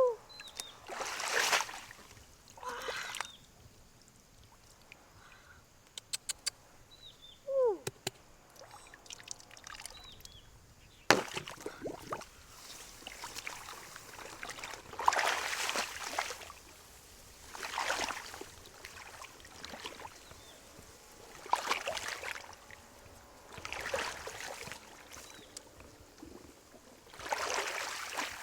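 Water sloshing and splashing in repeated bursts of about a second, every two to four seconds, with a few sharp clicks between them.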